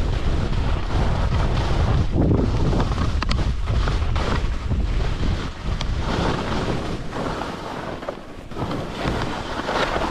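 Wind buffeting the microphone of a skier's camera during a fast descent, with ski edges scraping and hissing over firm, wind-packed snow. The rushing swells and eases in waves every couple of seconds as the skier turns, dropping briefly about eight seconds in.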